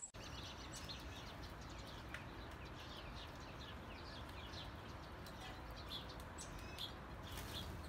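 Faint chirping of small birds: many short, quick downward chirps repeating over a steady soft hiss.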